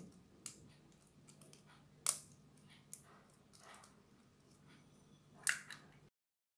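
An eggshell being cracked and pried apart by fingers: a few small sharp clicks and cracks, the loudest about two seconds in and again near the end, then the sound cuts off suddenly.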